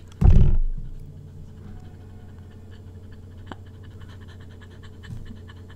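A woman's short, weird laugh: one loud burst about a quarter second in, followed by quiet with a faint steady hum.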